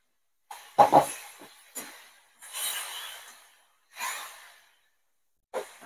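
Steel spatula scraping and clinking against a metal kadhai as marinated raw chicken pieces are stirred and turned, in about five separate strokes with one longer scrape near the middle.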